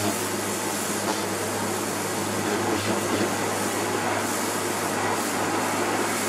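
Karcher pressure washer running steadily: the motor and pump hum low under the hiss of the high-pressure water jet spraying a plastic sun lounger.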